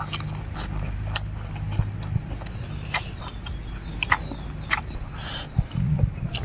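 Close-miked eating: a person chewing and biting chicken head, with repeated sharp wet mouth clicks and smacks. A low rumbling sound starts near the end.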